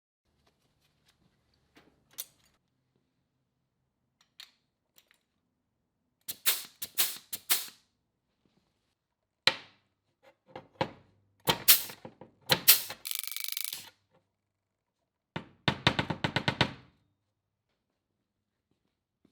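Bodywork on a Land Rover Discovery 1's front panels: clusters of sharp knocks and taps, including a quick run of rapid raps near the end, with a short burst of tool noise about thirteen seconds in.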